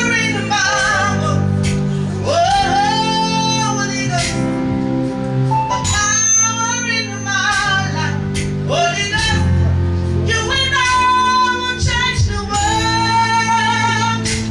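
Worship music: a woman's voice singing long, held phrases over steady sustained instrumental accompaniment.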